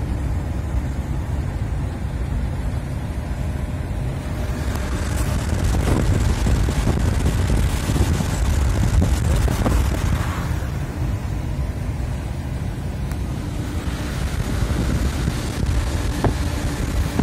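Car driving on a wet road, heard from inside the cabin: a steady low rumble of road and engine noise with tyre hiss. The hiss swells for several seconds in the middle.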